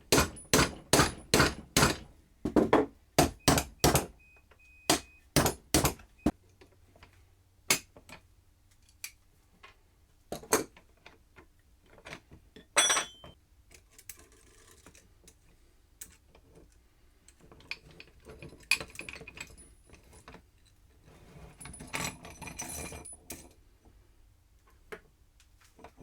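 Hammer striking a punch to drive the steel pin out of a quick-release woodworking vise's drive screw: a quick series of sharp metal blows, about three a second, for the first six seconds. Then scattered clicks and clinks of the loose metal vise parts being handled.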